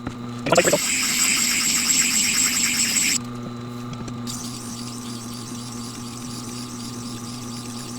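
Tormek wet grinder's motor humming steadily while a steel plane blade's bevel is ground on the turning stone wheel: a loud grinding scrape from about half a second in to about three seconds, then a fainter scraping hiss from about four seconds on.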